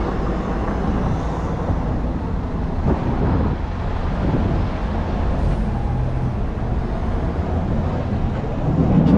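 Street traffic: a vehicle passes about three to four seconds in, over a steady low rumble, and another swells up near the end.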